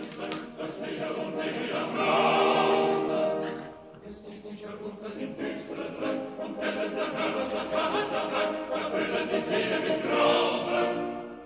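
Music with sung voices in an operatic, choral style, swelling twice.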